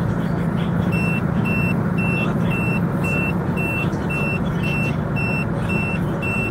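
A vehicle's in-cabin warning beeper starts about a second in and sounds high, even beeps about twice a second. Under it runs the steady hum of the engine and tyres heard from inside the moving vehicle.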